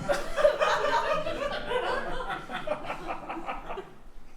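A person's voice making quick, rhythmic, pulsed vocal sounds, dying away about four seconds in.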